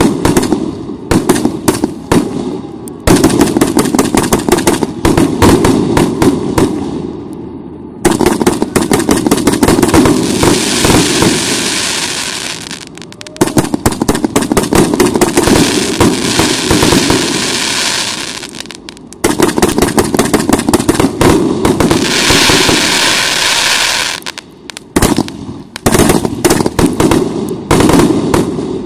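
Russian Pyrotechnics 'Gardens of Semiramis' RC885 fireworks cake, 150 shots of 1.2-inch calibre, firing in rapid volleys: a dense string of launch thumps and burst bangs. The string is broken twice by stretches of hissing crackle from the bursting stars.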